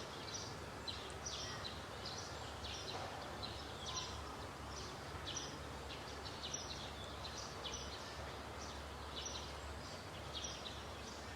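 Short high chirps repeating a few times a second without a break, over a steady low rumble.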